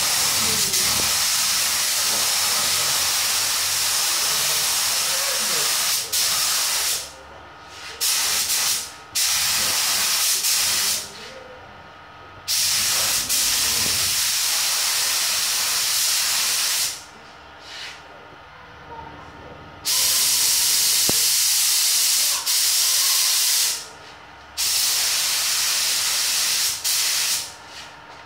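Iwata AirGunsa spray gun with a 1.3 mm nozzle spraying clear coat: a loud, even air hiss in repeated bursts, about six trigger pulls of one to five seconds each, with short breaks between passes.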